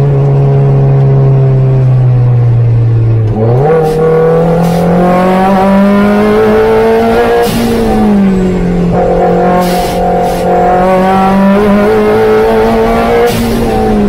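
Opel Speedster's four-cylinder engine heard from on board at speed: the revs sink for a few seconds, then pick up sharply and climb hard under acceleration, dip briefly about halfway through as a gear is changed, and climb again.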